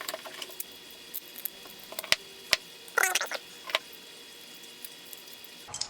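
Scattered light clicks and taps of small parts and tools being handled during assembly, with a short squeaky warble about three seconds in.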